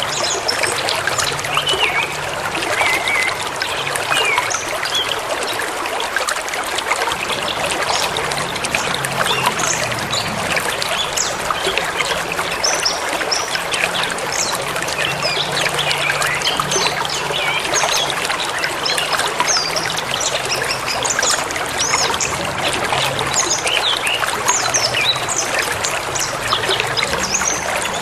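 Forest river flowing steadily, with songbirds chirping in many short, high notes.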